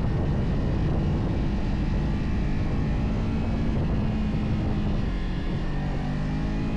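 Motorcycle being ridden at speed: heavy wind rush on the microphone over the engine's steady note, which climbs in pitch near the end as the engine revs up.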